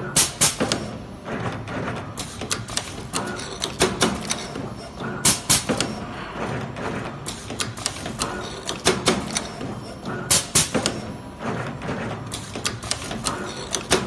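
Automatic flat ribbon cable cutting, stripping and tinning machine running through its cycle: clusters of sharp clacks from its slides and cutters come every one to two seconds over a steady background hum.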